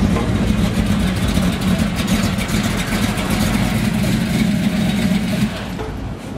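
Custom car's engine running at low speed as it is parked, a steady low engine note, which stops about five and a half seconds in as the engine is switched off.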